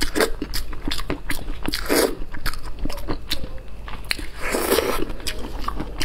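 Close-miked eating of spicy braised lamb's head meat: biting and wet chewing with many quick lip smacks and clicks. Two short muffled sounds come from the full mouth, about two seconds in and near five seconds.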